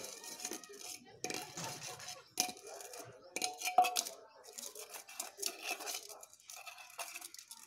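Metal dishes and bowls clinking and scraping against each other as they are scrubbed and handled, repeated clinks with short metallic rings, the loudest a little under four seconds in.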